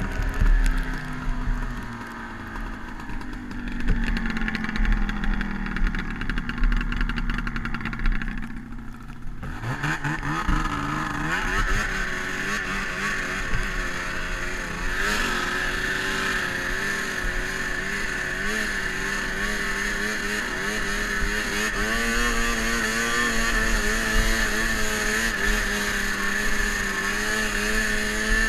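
Snowmobile two-stroke engine, an 800 fitted in a 2002 Ski-Doo MXZ X 440: the revs fall away for the first several seconds. About nine and a half seconds in the throttle opens and the engine climbs quickly to high revs, then holds there with a slight waver.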